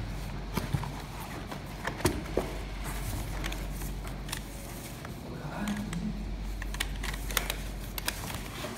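Rustling and crinkling of the thin white wrapping sheet around a keyboard as it is pulled back inside its cardboard box, with scattered sharp clicks and taps from handling the box and keyboard.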